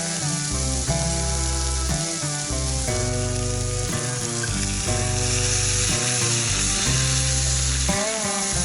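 Food frying in a pan with a steady sizzle that grows louder from about halfway in. Background music with held notes and a bass line plays over it.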